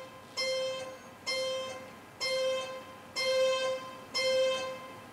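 Digital keyboard on a harpsichord voice playing the slow opening of a Baroque piece: the same note plucked about once a second, five times, each ringing and fading before the next.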